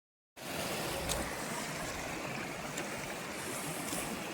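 Steady rushing of a waterfall's falling water, starting abruptly a moment in.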